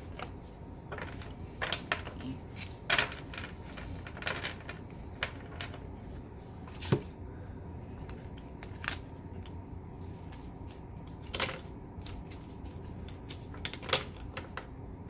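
Trading cards and their packaging being handled and set down on a table: scattered, irregular clicks and taps over a steady low room hum.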